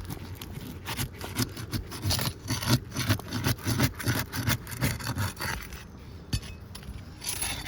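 A roofing tool scraping and prying under brittle asphalt shingles in a rapid run of short, uneven strokes, working to break the sealed shingles loose; the shingles are tearing from mat transfer rather than lifting cleanly.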